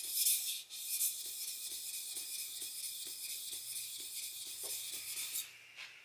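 Kitchen knife blade stroked back and forth on a wet whetstone: a rhythmic hissing scrape of steel on stone, several strokes a second, that stops abruptly about five and a half seconds in when the blade is lifted off.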